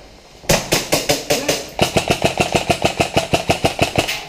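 Airsoft rifle firing on full auto, a rapid even rattle of about nine shots a second. It starts about half a second in and breaks off briefly just before two seconds.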